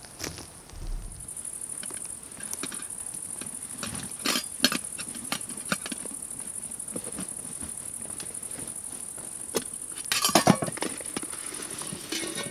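Steady high-pitched insect chorus, like crickets, under short rustles and knocks of camping gear being handled: cloth pouches opened and a metal pot drawn out. The handling is loudest about ten seconds in.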